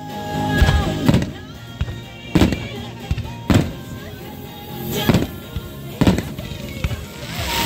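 Aerial firework shells bursting, a sharp bang every second or so, over music playing alongside. A crackling hiss starts near the end.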